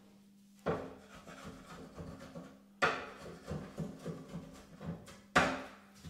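Wood being rubbed and scraped in three bouts, each starting with a sharp knock, as dust and wood chips are cleared out of the latch holes drilled in a wooden door.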